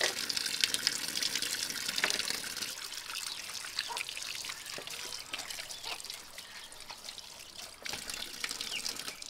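Tap water running into a stainless steel sink, splashing over hands and small crocodile carcasses as they are rinsed, with scattered small knocks and splashes. The water sounds louder for the first few seconds, then softer.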